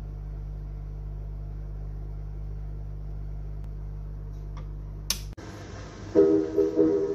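Steady low mains hum from a valve radiogram's amplifier. About five seconds in, the stylus drops onto a spinning 78 rpm shellac record with a sharp click and the hum gives way to surface hiss. About a second later the record's band music begins.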